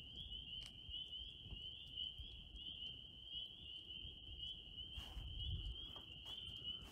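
A chorus of frogs calling at night: a steady, high-pitched trilling of many rapid calls. A few low thumps come about five seconds in.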